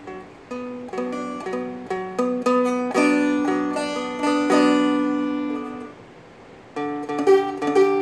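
Seagull Merlin four-string strumstick played with picked notes over ringing drone strings, moving through chord changes. The playing stops for under a second about six seconds in and then starts again: the hitch in time that comes from having to look at the fretboard to find the next chord.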